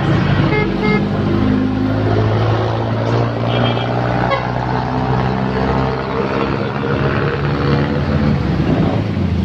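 Road traffic with a vehicle engine running steadily close by and short horn toots, a couple about a second in.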